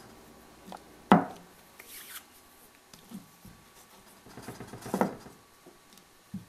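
Wooden rolling pin on a wooden board rolling out a small round of puri dough: a sharp knock on the board about a second in, then rubbing and rolling with a cluster of light knocks around five seconds in.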